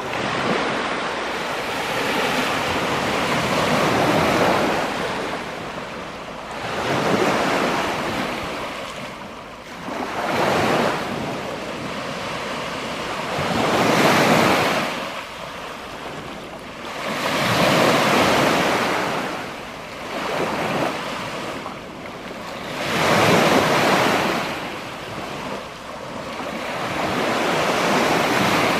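Small Lake Superior waves washing up on a sand and pebble beach, each one swelling and falling back every three to four seconds.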